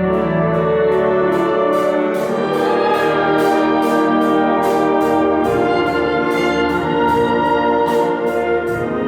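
Orchestra playing with brass to the fore over sustained chords, and a steady percussive beat of about three strokes a second.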